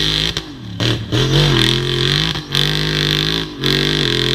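Rock bouncer buggy's engine revving at high rpm under full throttle as it climbs a steep, muddy hill, the revs dipping briefly about four times before picking straight back up.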